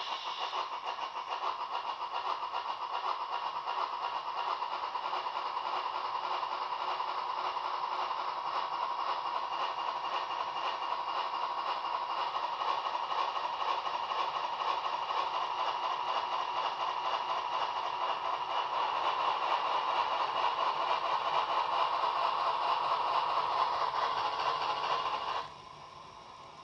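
Digital steam-locomotive sound from the Märklin H0 class 498.1 Albatros model's mfx+ sound decoder, played through its small onboard speaker. The exhaust chuffing is synchronised with the driving wheels turning on the roller test stand, and it quickens and grows louder as the model speeds up. The sound cuts off suddenly near the end as the sound function is switched off.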